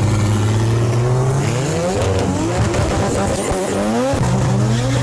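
Toyota Supra MK5 drag car doing a burnout: the engine is held at a steady high rev, sweeps up and down in the middle, then holds again, while the spinning rear tyres squeal.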